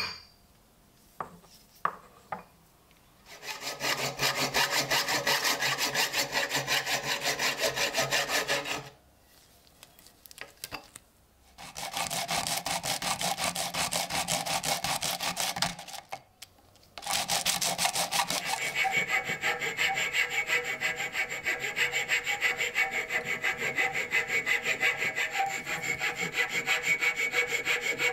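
A short metal tube ferrule rubbed back and forth on sandpaper in quick scraping strokes, in two spells with pauses and a few light clicks between. From about seventeen seconds in, a flat metal file works across the brass ferrule on a wooden handle held in a vise, in rapid even strokes.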